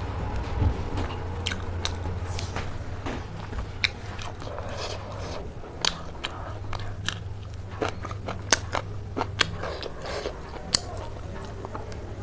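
A person eating close to the microphone, biting and chewing, with irregular sharp crunches and mouth clicks over a low steady hum.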